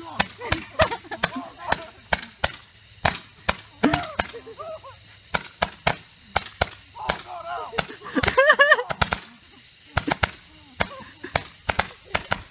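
A Saturn missile battery firework firing a rapid, irregular volley of small rockets, each ending in a sharp crack, several a second. A person yells wordlessly in between, loudest about eight seconds in.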